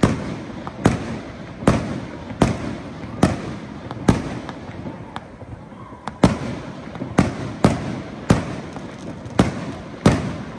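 Aerial firework shells bursting one after another, a sharp bang about every second, with a pause of about two seconds near the middle.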